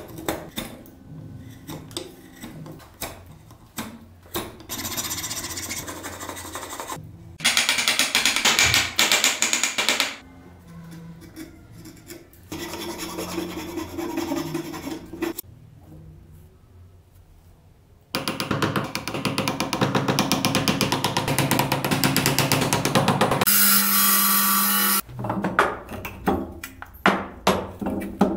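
A wooden block clamped in a bench vise being hand-worked: chisel cuts and light taps at first, then several stretches of fast rasping strokes from a hand file on the wood. A brief steady hum comes near the end, followed by a series of sharp taps.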